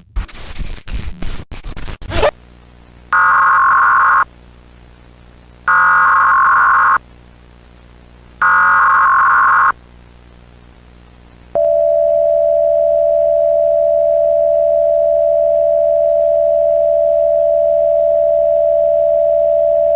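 Emergency Alert System header: after about two seconds of crackling static, three buzzy one-second SAME data bursts sound with short gaps between them, then a loud, steady attention tone begins a little past halfway.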